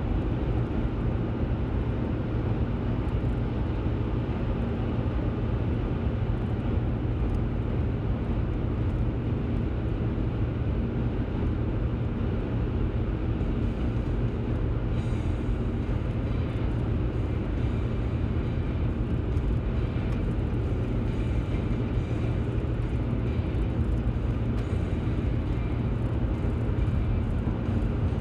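Road and engine noise inside a car's cabin while driving on a highway: a steady low rumble.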